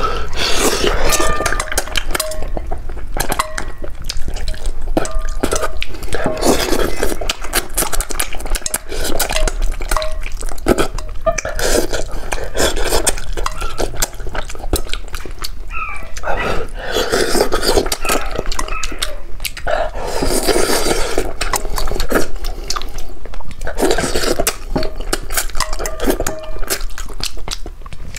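Close-miked eating of a sauced fish head: wet chewing, slurping and sucking at the meat and bones, with chopsticks clicking on the bowl and plate.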